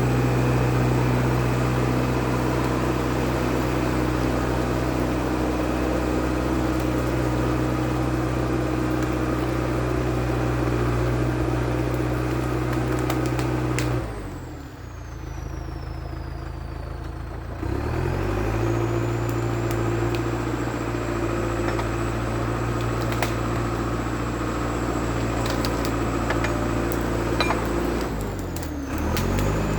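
International Harvester TD8E crawler bulldozer's diesel engine running steadily at high revs, with a high whine that follows the engine speed. About halfway through the revs fall away and it runs quieter for a few seconds before revving back up, and near the end the revs dip briefly and recover.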